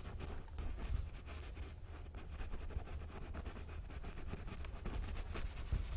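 Paintbrush scrubbing oil paint onto canvas: a quick run of short, scratchy strokes over a steady low hum.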